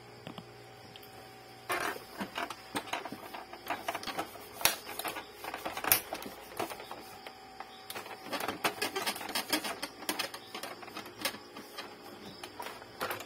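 Hard plastic clicking and knocking, irregular, as the ink tank unit of an Epson L3110 printer is handled and tilted by hand, starting a couple of seconds in.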